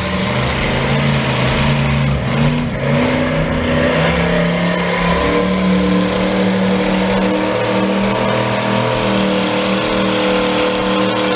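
Antique farm tractor's engine working hard under full load as it pulls a weight-transfer sled, its pitch rising about four seconds in and then holding steady.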